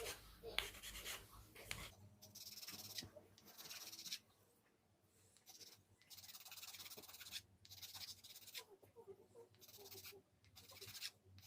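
Near silence with faint, intermittent rubbing and scraping from small parts being handled.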